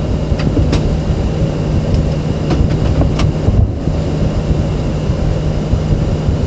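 Steady low rumble and hum in a parked Boeing 737's cockpit before engine start, the air-conditioning and auxiliary power running, with a few light clicks in the first few seconds.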